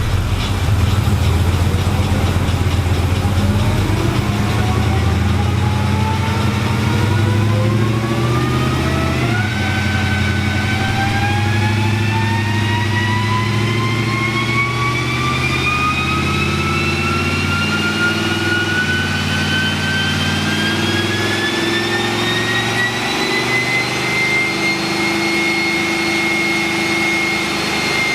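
Ram 1500's 5.7 Hemi V8 with long-tube headers making a chassis-dyno pull, running hard under load. A whine climbs steadily in pitch with speed and levels off near the end.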